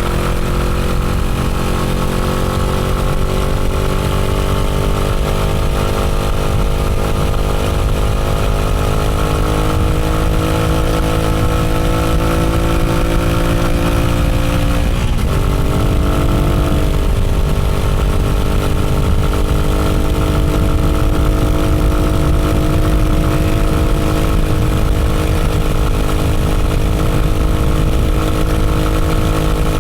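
Motorcycle engine running steadily under way, its note sinking slowly. About halfway through the note shifts briefly, then settles a little higher and drifts down again.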